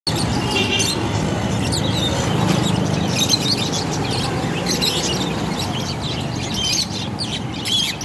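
Many caged budgerigars and other small cage birds chirping together, lots of short, high, overlapping calls, over a steady low rumble.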